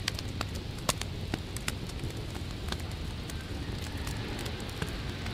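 Open wood fire crackling, with irregular sharp pops and snaps over a low steady rumble.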